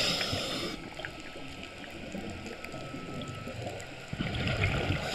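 Underwater breathing through a scuba regulator: a rush of exhaled bubbles fades out in the first second, and another starts about four seconds in, with quieter water noise between.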